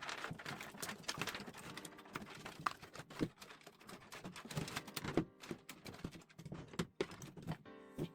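Bundled fan cables and their plastic connectors being pushed through a cable hole in a PC case: an irregular run of small clicks, taps and rustles.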